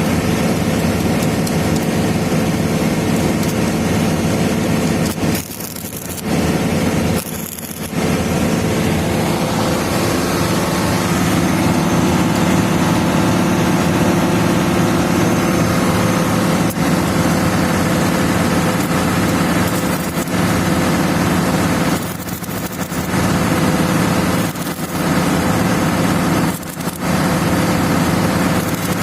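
Excavator diesel engines running steadily at high throttle, a loud hum under a dense hiss, dropping away briefly five times.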